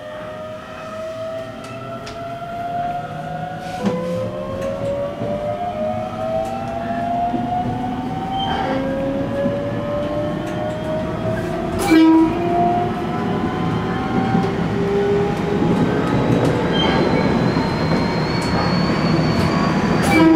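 E127 series electric train's inverter and traction motors whining as it pulls away and speeds up. The whine rises in pitch, drops back and climbs again several times, with a few sharp clicks and a growing running rumble.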